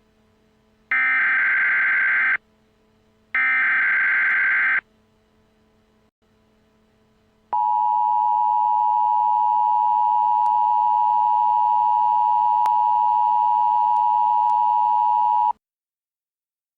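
Emergency Alert System header: two more rapid digital data bursts, each about a second and a half, following the end of a first. After a pause of a few seconds comes the EAS two-tone attention signal, a steady tone held about eight seconds that then cuts off.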